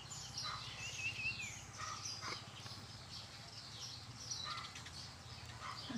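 Small birds chirping: many short, high chirps scattered throughout, with a brief warbling trill about a second in.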